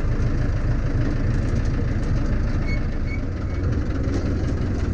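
Zetor 6711 tractor's diesel engine running steadily as the tractor drives along, heard from inside its cab.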